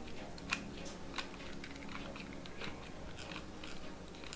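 Faint small clicks and crackles of a hot glue gun being worked while glue is laid onto a 3D-printed plastic hand plate on a work glove, with two sharper clicks about half a second and a little over a second in. A low steady hum runs underneath.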